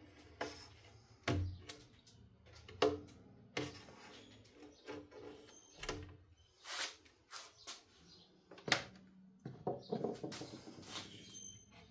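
Irregular clicks, knocks and scrapes of hand work on a loose pane of window glass and its metal sash channel, as the excess rubber is cut and pulled away.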